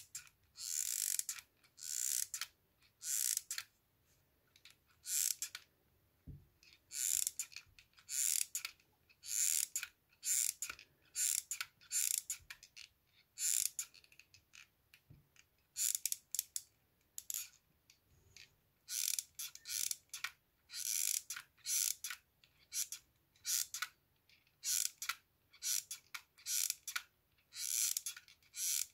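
Hot glue gun being squeezed again and again, its trigger feed ratcheting in short rasping strokes about once a second.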